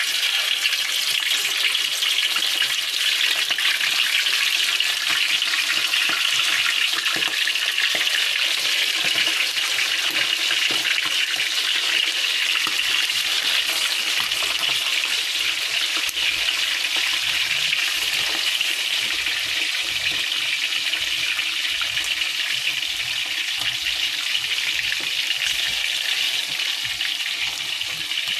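Marinated chicken heads and chicken pieces deep-frying in hot oil in a wide pan: a loud, steady sizzle with dense fine crackling that eases slightly near the end.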